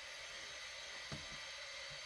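Quiet steady hiss of room tone, with one faint soft knock about a second in.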